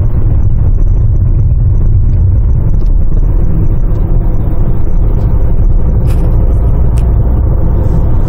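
Steady low rumble of a Nissan Qashqai 1.6 diesel driving along, engine and road noise heard inside the cabin.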